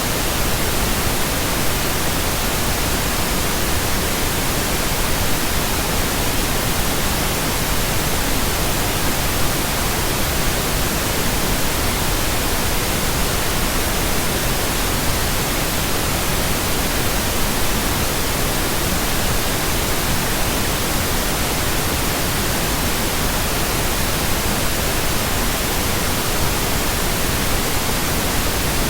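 Steady synthetic pink noise: an even, unchanging hiss spread across the whole range from low rumble to high hiss.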